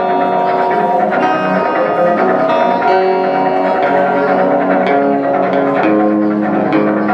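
Guitar music: plucked guitar notes, played as a solo over a lower backing line of held notes that steps from pitch to pitch.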